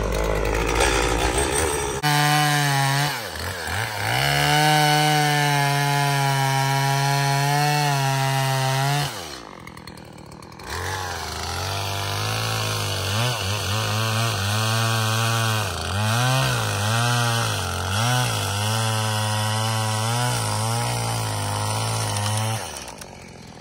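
Gas chainsaw felling a dead birch snag: the engine revs high, drops briefly to a low idle about halfway through, then runs again with its pitch wavering under cutting load, and cuts out near the end.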